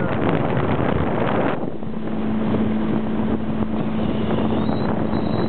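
Boat's outboard motor running at a steady cruising speed over choppy water, with wind buffeting the microphone. About a second and a half in, the wind noise drops and the motor's steady drone comes through plainly.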